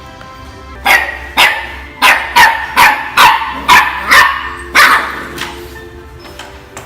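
A dog barking: a quick run of about nine sharp barks starting about a second in, roughly two a second, stopping after about four seconds.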